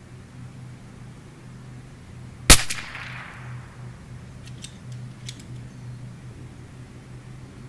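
A single shot from a Bergara B14R bolt-action .22LR rifle firing subsonic Eley Tenex match ammunition, a sharp crack with a short echoing tail. A few faint clicks follow about two seconds later, over a steady low hum.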